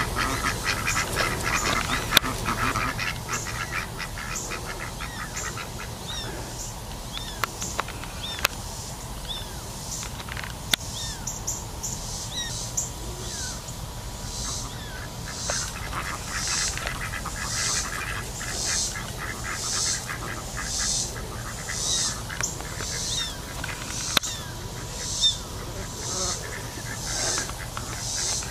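Ducks quacking in a fast chatter, loudest at the start and fading after about three seconds, with scattered quacks after that. From the middle on, a high buzzing pulse repeats about once a second.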